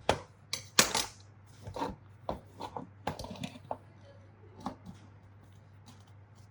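Small metal parts and tools clicking and clinking against each other and a hard work surface: about a dozen irregular knocks and clinks, loudest in the first second, thinning out and stopping about five seconds in.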